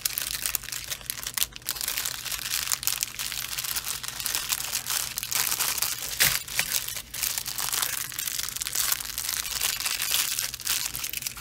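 Small clear plastic zip bags of diamond-painting drills crinkling and crackling steadily as they are handled, with one sharper crackle about six seconds in.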